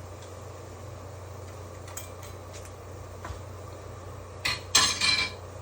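Kitchen containers and utensils clattering and clinking as seasonings are handled, with a few light clicks and then a short burst of louder rattling near the end, over a steady low hum.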